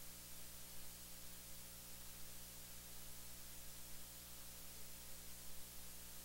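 Faint steady hiss with a low electrical hum and no speech: the recording's background noise.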